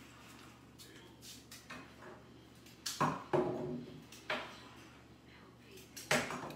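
Kitchen utensils being handled: four sharp clattering knocks in the second half, over a faint steady low hum.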